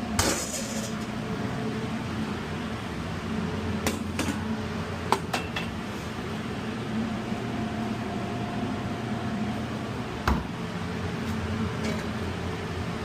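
A steady low machine hum, with a few light clinks and knocks about four, five and ten seconds in.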